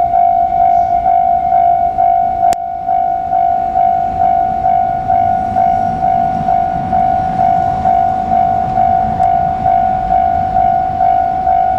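Japanese level-crossing alarm bell ringing: a loud electronic ding repeating at a quick, even rate. Under it, a low rumble swells in the middle as a train approaches.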